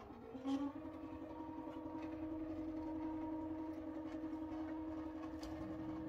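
Grace Company automation motors driving a Qnique 15 longarm quilting machine along its frame to the quilting start point, a steady machine whine at one even pitch, with a short knock about half a second in.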